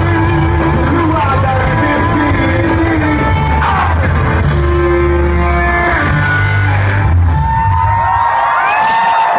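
Live rock band playing loud: electric guitars, bass and drums with a singer, recorded from within the crowd. Near the end the low bass and drums drop away, leaving guitar ringing.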